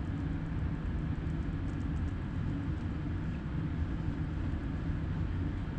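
Steady low rumble of a motor tanker's engine and machinery.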